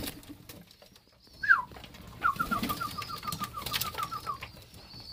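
Hungry domestic pigeons giving high squeaky begging calls. There is one loud falling squeak about a second and a half in, then a quick run of short peeps, about five a second, for some two seconds.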